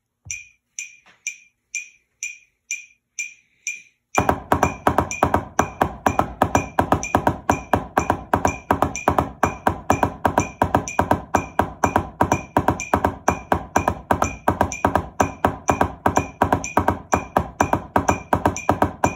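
A metronome clicking at 125 beats per minute, alone for about four seconds; then drumsticks join on a drum practice pad playing double-stroke rolls (doubles) in a fast, even stream over the clicks, stopping just before the end.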